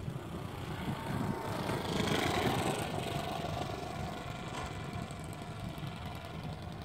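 Ultra Stick 60 model airplane's glow engine at low throttle on a landing approach, growing louder as the plane comes close about two seconds in, then running steadily at idle as it rolls out on the pavement.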